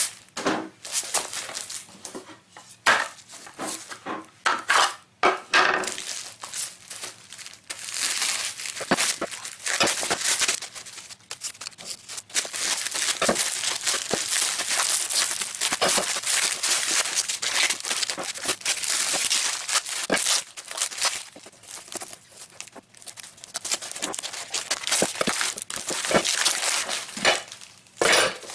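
Clear plastic wrap being slit with a knife and pulled and crumpled off a cardboard box: scattered crackles and taps at first, then a long stretch of loud, continuous crinkling and tearing that eases off near the end.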